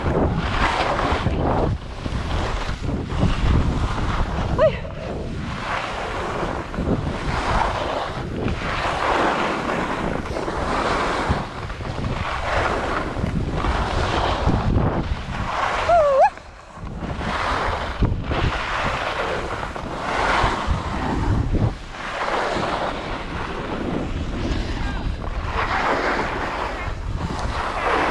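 Skis scraping and carving over packed snow during a downhill run, the noise surging and easing with each turn, under heavy wind buffeting the camera microphone.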